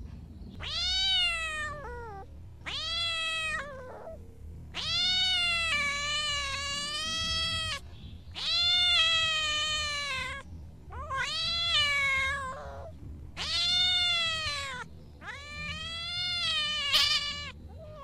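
Seven drawn-out, high animal cries, each lasting one to three seconds. Each rises at the start and falls away at the end.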